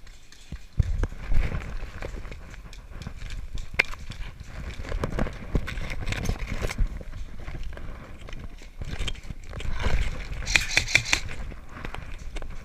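Footsteps and gear jostling close to the microphone, with scattered sharp clicks and taps.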